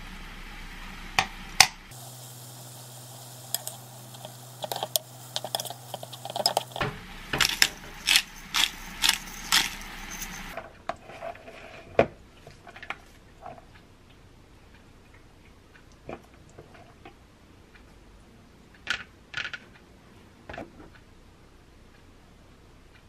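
Utensils clinking and scraping in a nonstick frying pan as creamy tofu-noodle pasta is tossed, a quick run of clicks over a light hiss for the first ten seconds. After that come only a few sparse, softer clinks and taps as the pasta is plated into a ceramic bowl and garnished.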